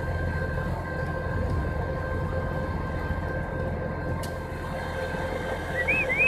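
Heavy tow truck's engine running steadily: a low rumble with a faint steady whine over it. Near the end a short warbling whistle rises and falls several times.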